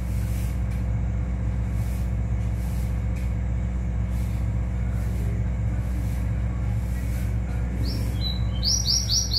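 Steady low rumble throughout, with a quick run of about half a dozen high whistled notes near the end from a caged rowti (ruddy-breasted seedeater) starting to sing.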